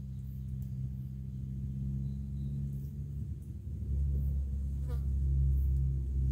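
A low, steady droning hum with a gong-like ring, growing louder about four seconds in. A short rising whistle-like sweep comes about five seconds in.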